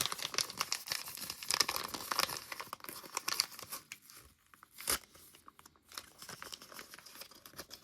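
A small plastic wrapper being torn open and crinkled by hand, with dense crackling for the first few seconds, then lighter crinkling, and a single sharp click about five seconds in.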